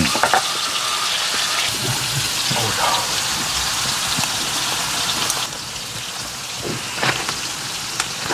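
Steady rushing hiss of water that drops a little in level about five and a half seconds in, with a few light clicks of utensils on steel bowls.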